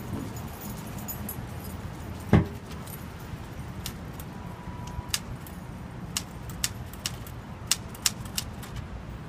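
Old manual typewriter keys striking paper in an irregular run of sharp clacks, starting about four seconds in. About two seconds in, a single short loud call stands out as the loudest sound, over a steady low background rumble.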